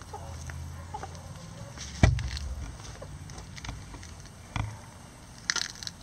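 A few sharp knocks and thumps, the loudest about two seconds in and two smaller ones near the end, over a low rumble; no crowing.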